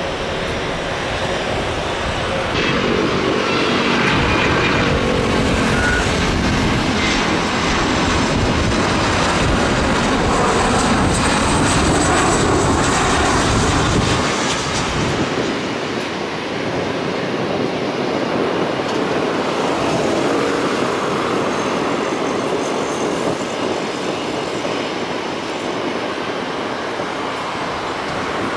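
Boeing 737-400 freighter's CFM56 jet engines on landing, a loud rush with a high whine. The low rumble drops away about fourteen seconds in as the noise fades.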